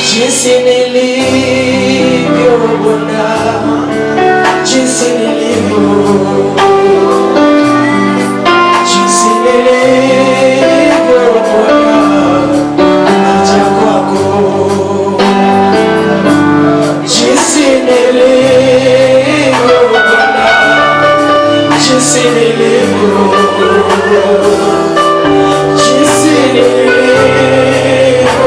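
Gospel worship music: keyboard and bass playing steady sustained chords under a singer holding long notes with vibrato.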